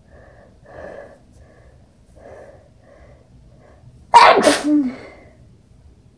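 A person sneezing into a towel: a couple of faint catching breaths, then about four seconds in one loud, sudden sneeze in a quick double burst with a short voiced tail.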